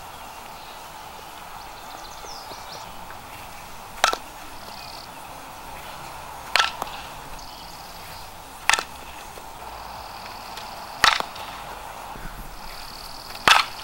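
A softball bat striking pitched softballs in batting practice: five sharp cracks, each with a brief ring, about two and a half seconds apart.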